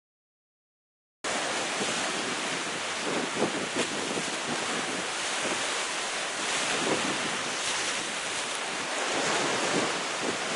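Sea waves breaking against the rocks at the foot of a cliff: a steady rush of surf with a few brief louder surges. It cuts in suddenly about a second in, after silence.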